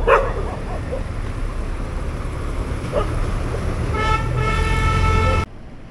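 Night street traffic with a steady low rumble of engines and tyres, and a vehicle horn sounding one steady blast of about a second and a half near the end.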